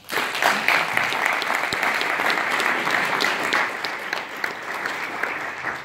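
Audience applauding: dense clapping that starts all at once and dies away near the end.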